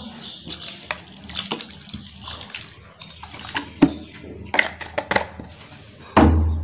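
Water pouring and splashing over fresh paneer curds in a cloth-lined strainer bowl, rinsing the curds. A short, loud thump about six seconds in.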